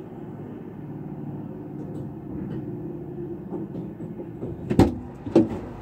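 A low, steady rumble inside a parked car, then two loud thumps about half a second apart near the end.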